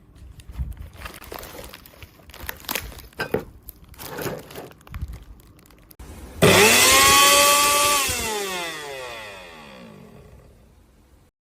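A series of irregular knocks and clatter. Then the Preethi Crown mixer grinder's motor starts suddenly with a loud whine, runs for about a second and a half, and is switched off, its pitch falling steadily as it spins down.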